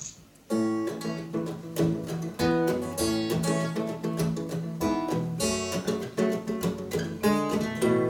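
Two acoustic guitars, a six-string and a twelve-string, playing the instrumental introduction of a bard song, coming in together about half a second in with rhythmic strummed and picked chords.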